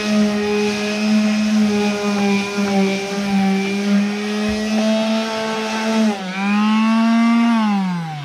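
Electric palm sander running steadily while sanding a wooden board flat. Near the end it is switched off and winds down with a falling pitch.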